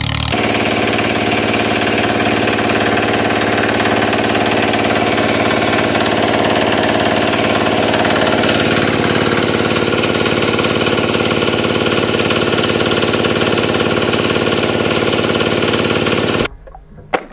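Tractor engine sound effect running steadily at a knocking idle, dubbed over toy tractors that make no engine sound of their own. It starts abruptly and cuts off suddenly about a second before the end, followed by a brief sharp knock.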